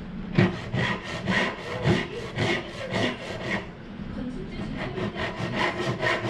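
A hand saw cutting through wood in quick back-and-forth strokes, about two a second.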